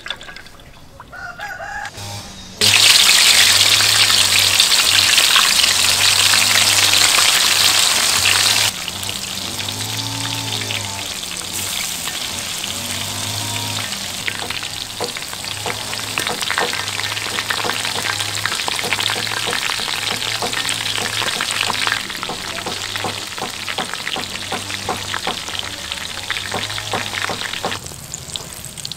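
Cooking oil pouring into a wok, then deep-frying: a loud, dense sizzle and crackle begins suddenly about three seconds in as stuffed parcels hit the hot oil. It settles to a steadier, quieter bubbling sizzle after about nine seconds and drops away near the end.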